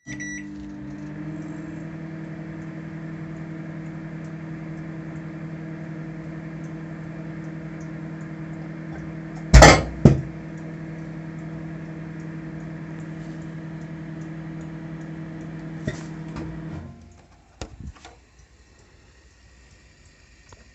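Microwave oven running with a steady hum. About halfway through, an egg heating inside bursts with two loud bangs about half a second apart. Near the end the hum stops, followed by a few clicks.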